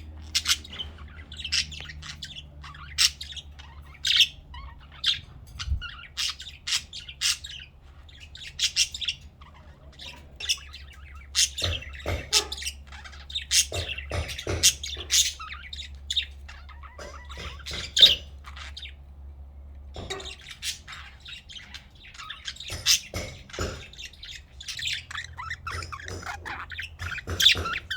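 Pet budgerigar chirping and chattering: a rapid run of short, high chirps and squawks with a brief pause about two-thirds of the way through.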